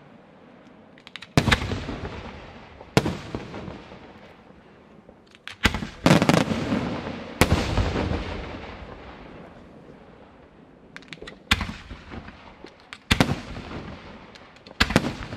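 Aerial firework shells bursting overhead: about eight loud bangs at uneven intervals, each followed by a long rolling echo that dies away, with a few small pops between them.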